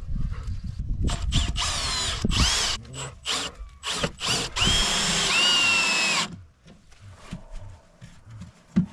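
Power drill with a Phillips bit working screws in the wooden nest box, running in several short bursts and then one longer run, its motor whine sliding up and down in pitch.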